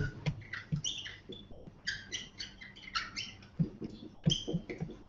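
Marker squeaking on a whiteboard as words are written: a quick, irregular run of short, high squeaks with a few light taps of the tip.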